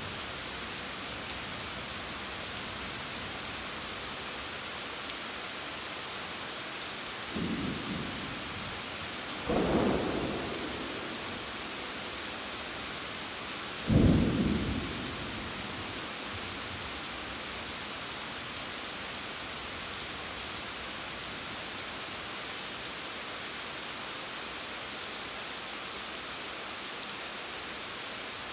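Steady rain falling, with three claps of thunder. A faint one comes about seven seconds in and a louder one about two seconds later. The loudest comes about fourteen seconds in, starting suddenly and rumbling away over a second or two.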